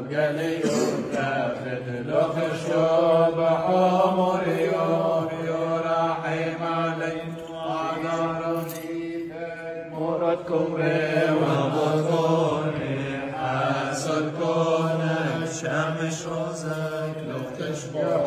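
Male voices chanting a Syriac Orthodox liturgical hymn, with a steady low note held underneath the melody.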